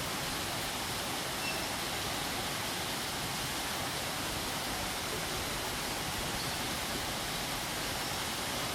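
Waterfall: a steady rushing wash of falling water at an even level, with no changes or separate events.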